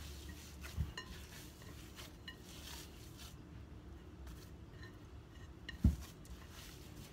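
Hands kneading and squeezing soft shortening-and-flour cookie dough in a glass bowl, with faint rustling and light clicks against the glass. A dull thump comes about a second in and a louder one near six seconds, as the bowl is pressed against the counter.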